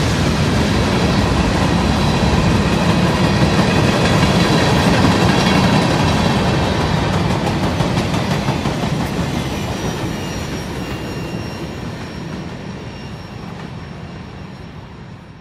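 Freight train of covered hopper cars, ending with a passenger car, rolling past close by: steady rumble and rattle of steel wheels on the rails. The sound fades gradually over the second half as the end of the train passes and moves away.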